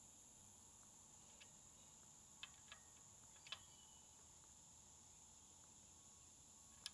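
Near silence with a steady faint high hiss, broken by a few faint, short metallic clicks as a combination wrench is set on and turned on the bolts of an oil cooler block-off cover.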